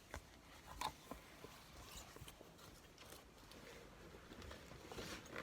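Faint scattered clicks and rustles of small handling noises, the clearest about a second in and another near the end.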